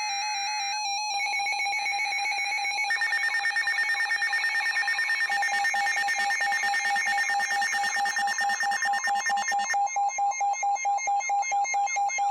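NOAA Weather Radio alert for a severe thunderstorm warning: electronic alert tones, then, about three seconds in, a rapid pulsing alarm over a steady tone, beating several times a second.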